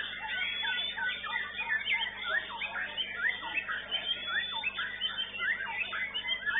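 White-rumped shama (murai batu) singing continuously: a fast, varied string of short whistled notes, each sliding up or down in pitch.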